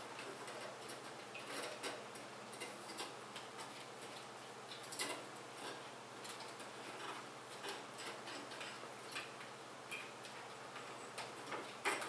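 Irregular light clicks and taps from computer parts being handled and fitted during a PC build, with a couple of sharper clicks about halfway through and near the end.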